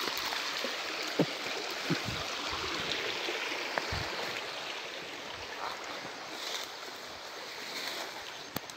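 Steady rush of a small forest stream, growing slightly fainter, with a few faint knocks and rustles from footsteps through undergrowth.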